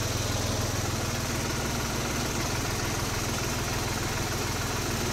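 New Holland tractor's diesel engine idling steadily.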